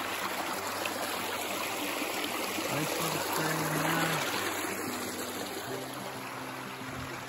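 Shallow stream running over rocks and gravel, a steady rush of water that is a little louder about halfway through.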